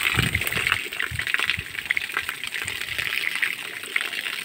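Thick stream of water gushing down and splashing onto the ground, a steady rush of falling water; this is curing water run onto a freshly cast concrete slab.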